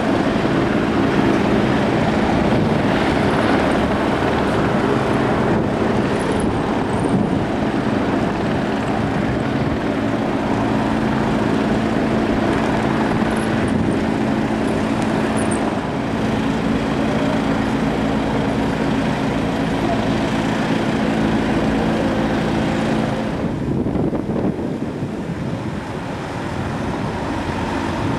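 Engine of an aircraft towing tractor running steadily as it moves a C-47 Dakota, a steady hum over a broad rumble. The hum drops away about 23 seconds in and the overall level dips slightly.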